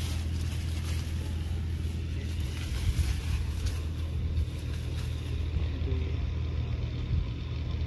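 A steady low rumble, with a fainter even hiss above it.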